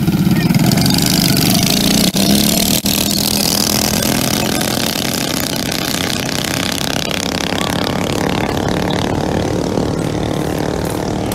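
Small mini bike engines revving hard as the bikes launch and accelerate away, their sound fading slowly with distance.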